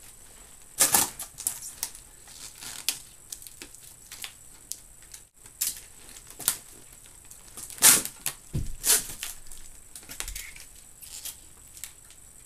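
Irregular clicks, scuffs and rustles as snowboard boots are set down on a row of laptops and makeshift cardboard-and-strap bindings are fastened over them by hand. The loudest knocks come just before 8 seconds in and about a second later.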